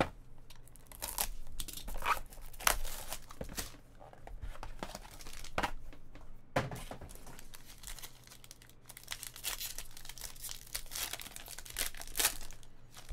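A foil-wrapped trading-card pack crinkling and tearing as it is handled and ripped open by hand, in irregular crackles, with some handling of its cardboard box.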